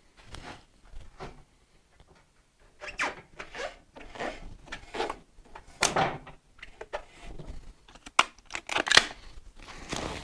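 Hand tools working the front fender's bolts and lock nuts: irregular metal scrapes and rattles, with a few sharp clicks about eight to nine seconds in.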